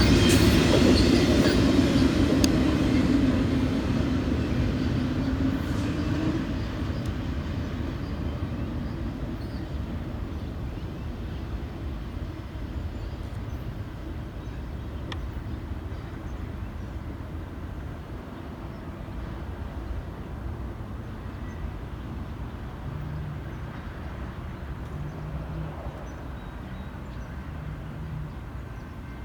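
Intermodal freight train cars rolling past on the rails, the rumble fading away over the first several seconds and settling into a low, steady background.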